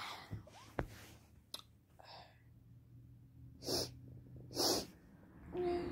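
A person sneezing twice, two short sharp bursts about a second apart, then a voiced gasping breath near the end. The sneezes are an allergic reaction to sniffed perfume.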